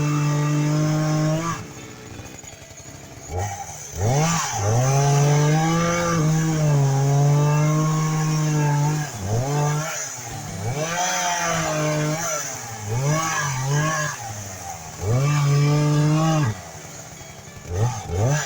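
Two-stroke chainsaw cutting up a large log: several long bursts at full throttle, its pitch sagging and recovering under the cut, dropping back to idle between bursts.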